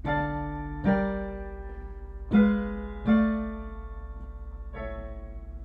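Piano playing five block chords, each struck and left to fade, the last held: a short D-minor progression, i – iv – vii°7 of V – V with 6-4 resolving to 5-3, ending on a tonicized half cadence.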